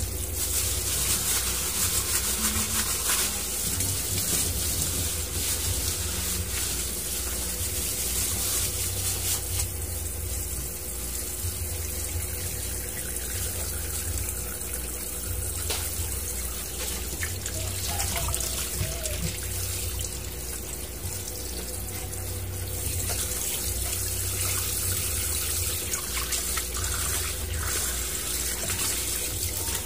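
Kitchen tap running steadily into a stainless steel sink, the water splashing over a raw whole chicken in a plastic tub as it is rinsed by hand.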